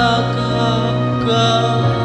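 Karaoke backing track of a slow ballad, an instrumental passage with long held melody notes over a steady bass line; the melody moves to a new note about halfway through.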